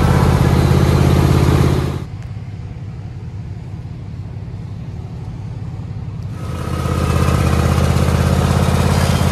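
A 23-horsepower John Deere Z425 zero-turn mower engine idling steadily. It drops to a quieter level from about two seconds in, then comes back strong about six and a half seconds in.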